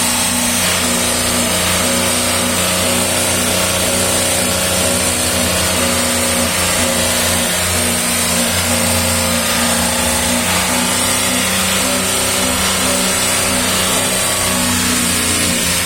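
Volkswagen up! 1.0 TSI three-cylinder engine held steady at about 3,000 rpm, with a tone on top that pulses on and off at an even rhythm. The clutch is being pressed and released to bring out a clutch noise. With the pedal down, the mechanic takes the noise for the fork chattering on the actuator, or for a faulty release bearing rubbing the pressure plate.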